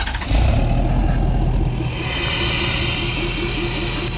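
Ford Super Duty pickup's Power Stroke V8 diesel running just after a remote start. It runs louder at first, then settles to a steady idle with a deep rumble about a second and a half in. It sounds like an angry diesel.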